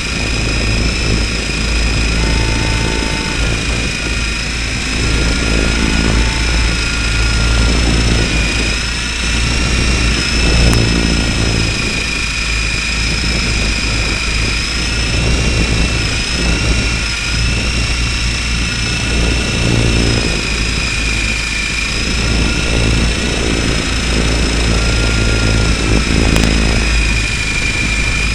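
Radio-controlled helicopter's motor and rotors running in flight, heard close up: a steady high whine that wavers slightly in pitch, over a constant low rumble.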